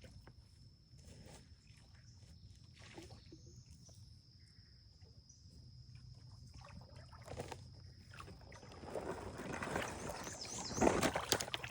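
Water splashing and dripping, building to its loudest near the end, with scattered small knocks before it and a faint steady high whine throughout.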